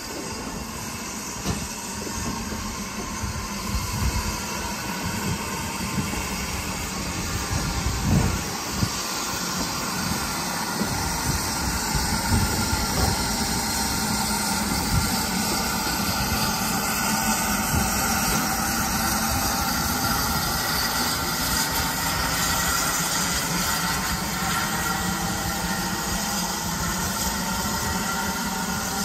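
GWR 4575-class small prairie tank steam locomotive 5553 hissing steam while moving slowly alongside the platform. Uneven thumps come through in the first ten seconds, the sharpest about eight seconds in, and then a steadier, slightly louder hiss sets in.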